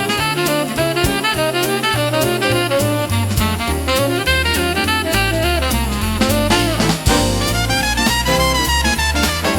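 Instrumental swing-jazz music with a melody line over a stepping bass and a steady beat.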